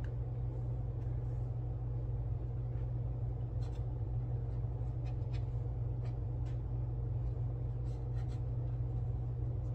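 Faint scratching and light ticks of a cotton swab rubbing thin adhesive metal foil down onto a small plastic model part, over a steady low hum.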